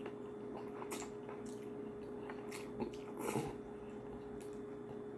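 A person chewing and eating, with a few soft mouth clicks and smacks, the most distinct about a second in and just past three seconds in, over a faint steady hum.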